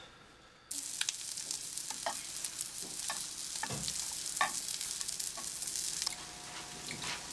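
Food sizzling in a frying pan on a gas stove, a steady hiss with scattered crackles and taps as the pieces are turned with chopsticks. It starts just under a second in and drops to a quieter hiss about six seconds in.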